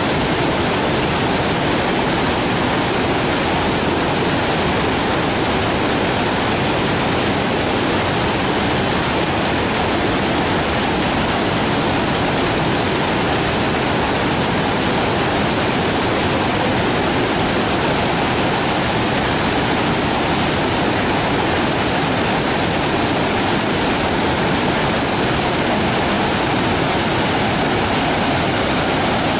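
Waterfall: a steady, loud rush of falling water with no breaks or changes.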